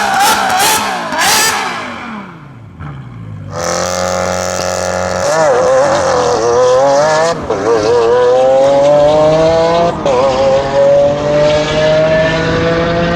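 V12 supercar engine: the revs fall away, and after a short lull the car accelerates hard, its engine note climbing steadily through the gears with upshifts about 7 and 10 seconds in.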